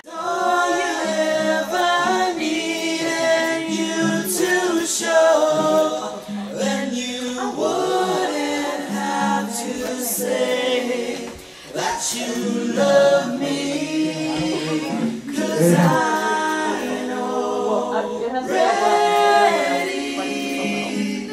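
Singers rehearsing a song unaccompanied, voices singing together with no instruments, with a brief pause about halfway through.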